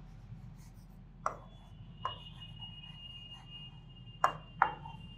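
Chalk writing on a blackboard: four sharp taps of the chalk against the board, with faint scratching between them.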